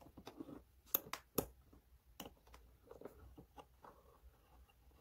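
Hex key turning a bolt into the gaming chair's metal backrest bracket: faint scattered clicks and light metal ticks, two sharper clicks about a second in. The bolt is threading in smoothly.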